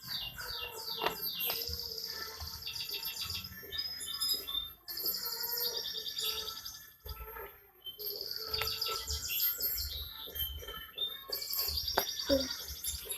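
Songbirds chirping and trilling in quick repeated phrases, with a brief pause about seven seconds in.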